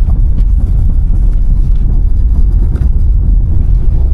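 Loud, steady low rumble of a moving vehicle.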